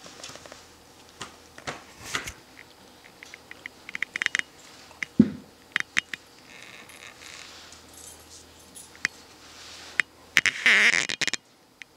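Scattered light clicks and taps of a baby's hands on a plastic high-chair tray and suction bowl, with a brief baby vocalization near the end as he leans over the side.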